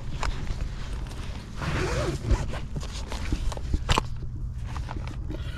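Canvas drawstring bag rustling as things are handled and packed inside it, with a couple of sharp clicks from the contents.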